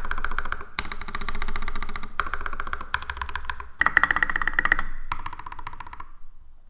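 Fast typing on a custom mechanical keyboard with a brass plate, lubed Holy Red Panda tactile switches and thick double-shot ABS SA-profile keycaps: a rapid stream of keystrokes that stops about six seconds in.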